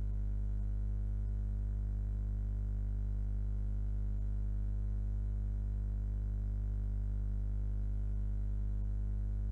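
A steady, unchanging low drone of several held tones; the kneading itself is not heard.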